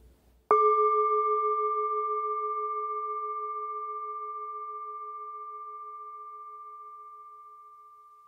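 A singing bowl struck once about half a second in, ringing with a slight wavering pulse and slowly fading away: the closing bell of a guided meditation.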